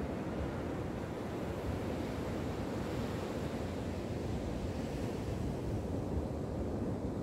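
Ocean surf washing steadily on a beach, with wind rumbling on the microphone.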